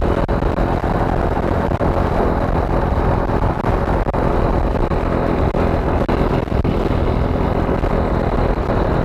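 Heavy wind rushing over an SJCAM action camera's microphone, a homemade replacement made from an old headset mic, with a motorcycle engine running steadily underneath at high road speed.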